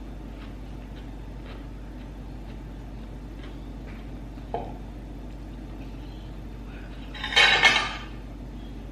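Mukbang eating sounds close to the microphone over a steady low hum: faint clicks of chewing and handling, then a loud noisy burst lasting under a second about seven seconds in.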